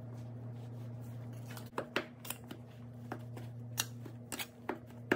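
Metal pastry knife chopping cold butter into flour on a granite countertop: irregular sharp taps and scrapes of the blade on the stone, starting a couple of seconds in, over a steady low hum.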